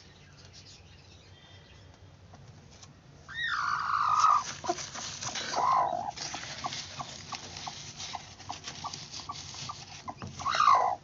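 Broody hen calling from her nest of eggs: a loud drawn-out call about three seconds in and another near six seconds, then a run of short quick notes a few a second, and a loud call again near the end.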